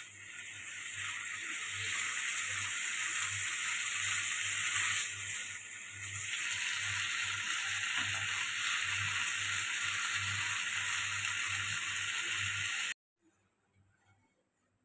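Food frying with a steady sizzle, dipping briefly about halfway and cutting off suddenly near the end.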